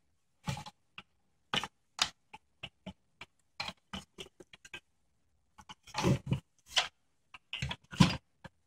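Irregular clicks, creaks and knocks from a CD-ROM drive's plastic housing and metal parts as it is handled and worked apart by hand. There are heavier knocks about six seconds in and again near the end.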